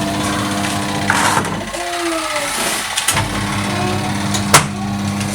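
Von twin tub washing machine's wash-tub motor humming steadily through a wash cycle. It stops for about a second and a half around two seconds in and then starts again, as the pulsator reverses direction. A couple of sharp knocks come with the restart and near the end.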